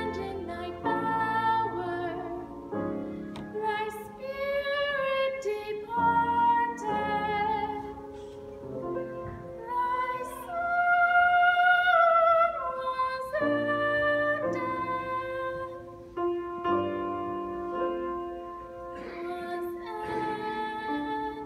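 A woman sings a solo with vibrato, accompanied by a grand piano. About halfway through, a long held note is the loudest part.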